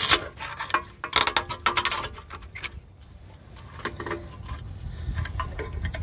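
Rapid metallic clinks and ticks from a hand tool working the springs and clips of a Jeep Grand Cherokee ZJ's parking brake shoes, some with a short ring, in a flurry over the first two seconds. A few more clicks come about four seconds in, and a low rumble rises near the end.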